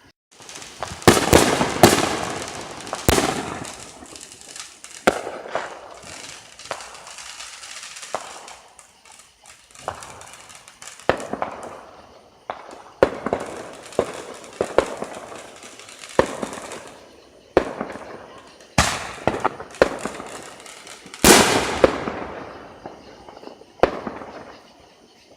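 Fireworks going off in quick succession: sharp bangs, each followed by fading crackle, with the loudest volleys about a second in and again about 21 seconds in.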